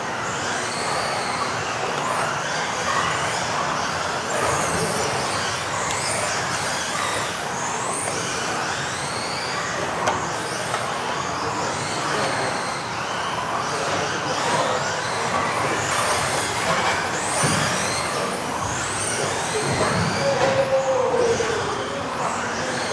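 Several modified-class electric RC off-road cars racing together: high motor whines that keep rising and falling as the cars accelerate and brake, over a continuous wash of tyre and drive noise.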